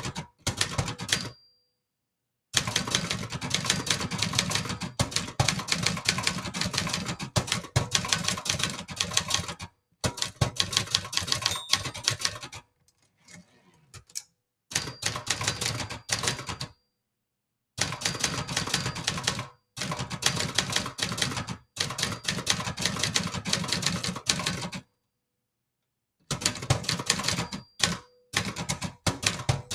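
Brother Charger 11 manual typewriter being typed on fast, keys and typebars clacking in bursts of a few seconds with short silent pauses between. About halfway through, the typing stops while the carriage is returned with its lever.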